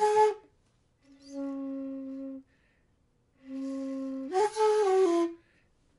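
Bamboo shakuhachi played in its lowest register: a note gliding up and stopping, then a held low note, then another low note that leaps to a higher, breathier pitch and steps back down. The held low notes are bent below the flute's normal bottom note, reaching for the low Do (C).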